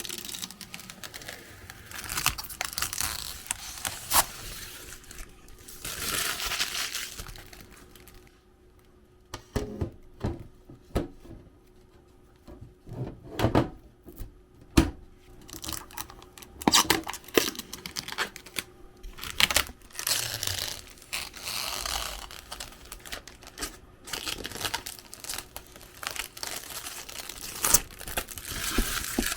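Irregular crinkling and tearing, with scattered sharp clicks and knocks from handling.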